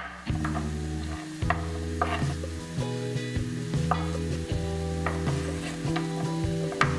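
Chopped onion sizzling in a frying pan while a knife slices a zucchini into strips on a wooden cutting board, with a sharp tap of the blade on the board about once a second, over soft background music.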